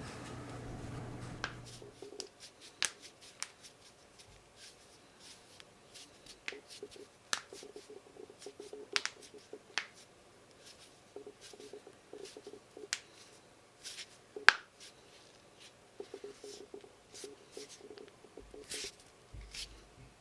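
Knuckles cracking: a long run of sharp pops and clicks at irregular intervals, with one much louder pop about two-thirds of the way through. A low steady hum stops about two seconds in.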